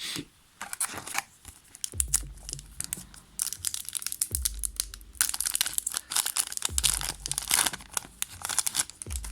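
Foil booster pack wrappers being torn open and crinkled, in repeated bursts of tearing and rustling, with a dull bump about every two and a half seconds.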